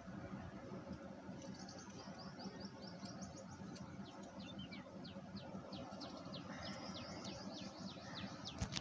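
Small birds chirping in quick runs of short, high, falling notes over a steady low hum, with one sharp click near the end.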